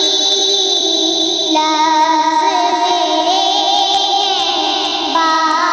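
A female voice singing a naat, an Urdu devotional song, in long, wavering melodic phrases over a steady low background hum, with no instruments or beat.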